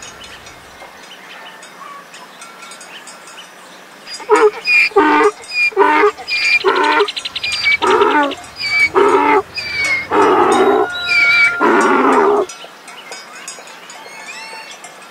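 Donkey braying: a run of repeated hee-haw calls starting about four seconds in, the later ones longer and louder, stopping a couple of seconds before the end.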